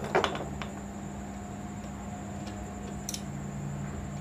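Small metal clicks and taps from sewing-machine parts being handled around the needle bar and shuttle hook: a few sharp clicks at the start, then only faint, scattered ticks. A steady low hum runs underneath.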